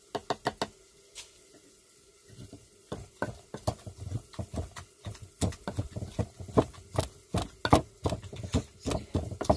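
Wooden pestle pounding and grinding fire-roasted tomatoes in a wooden mortar for chutney: rapid, repeated wet thuds, about three to four a second, starting about three seconds in after a few light clicks.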